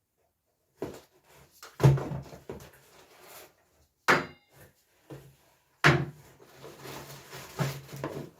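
Parts being handled and set down on a hard surface: a series of knocks and clatters with rustling between, the sharpest about two, four and six seconds in.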